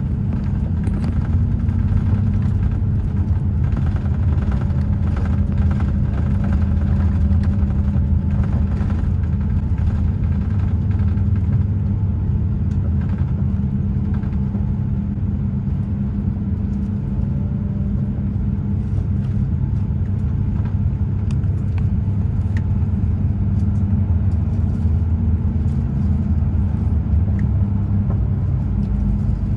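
Airbus A350-900 cabin noise heard from inside, a steady low rumble that holds an even level.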